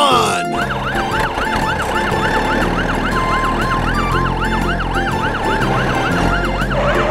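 Fire truck siren, a fast rising-and-falling yelp repeating about four times a second.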